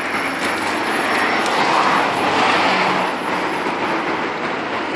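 Highway traffic passing steadily, growing louder as a vehicle goes by around the middle and then easing off.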